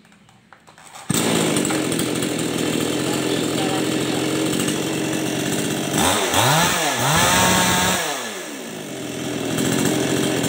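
Two-stroke Ramses CS5800 chainsaw engine catching about a second in and idling, then revved up and down a few times around the middle, with its pitch rising and falling, before settling back to idle. This is a test run after its carburettor's low-speed air screw was turned right to cure a sputtering ('brebet') running.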